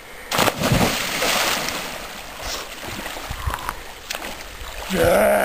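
A person diving headfirst into a creek: a loud splash about a third of a second in, then water churning and sloshing as he swims. Near the end a loud pitched sound begins.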